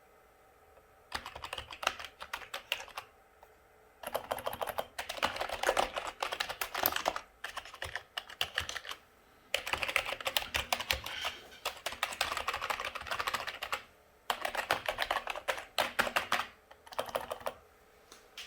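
Typing on a computer keyboard: rapid keystrokes in several bursts of one to five seconds, separated by short pauses.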